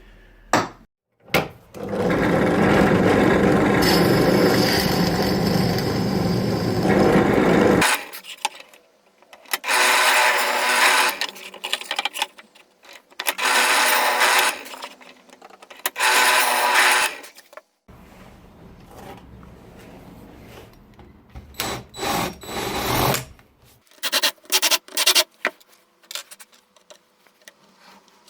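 A power drill running in stretches: one long run of about six seconds, then three short bursts, then a quieter run. It is drilling the chipboard for threaded inserts. A few light clicks and knocks near the end.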